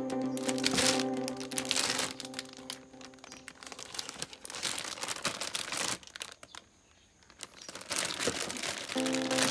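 Clear plastic packaging bag crinkling in irregular rustles as a toy vest inside it is handled, with a quiet stretch a little past the middle. Background music with steady sustained chords stops about four seconds in and comes back near the end.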